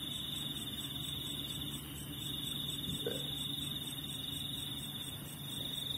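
Crickets chirring in a steady high trill that breaks off briefly about two seconds in and again near the end, over a faint low hum.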